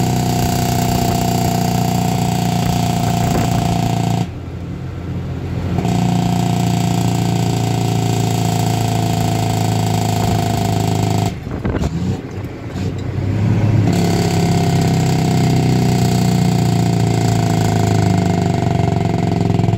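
1975 Dodge Big Horn tandem tractor's diesel engine running under way, heard from inside the cab. The engine sound drops off briefly twice, about four seconds in and again near the middle, then picks back up.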